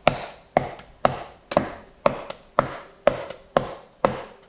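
Plastic dead blow hammer tapping a block of wood set on a piston top, steady strikes about two a second, driving the piston through a ring compressor into the cylinder of a John Deere two-cylinder engine.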